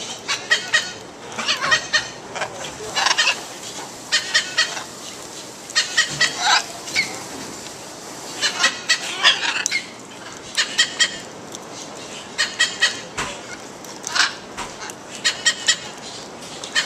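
Parrots chattering: short, harsh calls in quick runs of several, repeating every second or so.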